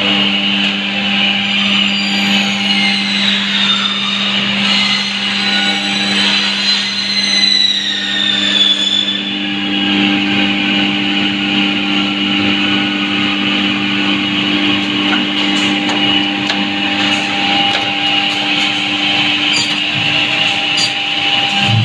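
FZ-360 edge banding machine running, its high-speed cutter motors giving a steady hum with a higher whine over it. A higher tone rises and falls for a few seconds near the start.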